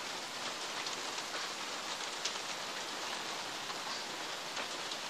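Steady rain falling: an even hiss with occasional faint drop ticks.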